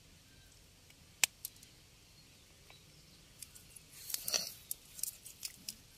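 Hands working fish out of a cast net: scattered small clicks and rustles of the net and fish, with one sharp click about a second in and a busier run of clicks and rustles from about halfway.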